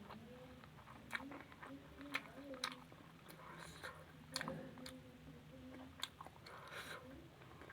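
A person chewing food close to the microphone, with irregular wet mouth clicks and smacks and a few sharper bites.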